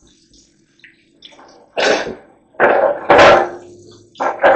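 A drywall mud pan and taping knives being cleaned, heard as three short, loud, noisy bursts of scraping and washing in the second half.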